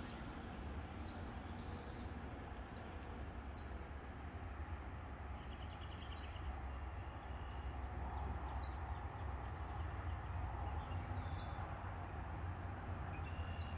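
Outdoor ambience: a steady low rumble with a short, very high chirp repeating about every two and a half seconds.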